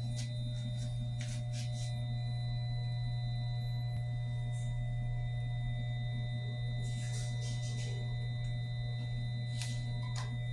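Steady low hum with a faint high whine, unchanging throughout, and a few brief rustles or clicks about a second in, around seven seconds and near the end.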